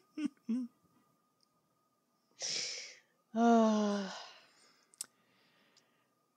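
A person breathes in and lets out a long, voiced sigh that drifts slightly down in pitch and fades, followed by a single sharp click.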